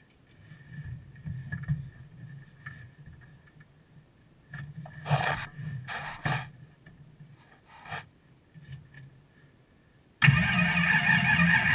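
Supercharged drag-race engine in a Chevrolet LUV pickup being cranked by the starter for several seconds, with a few sharp coughs along the way. It fires about ten seconds in and runs loudly.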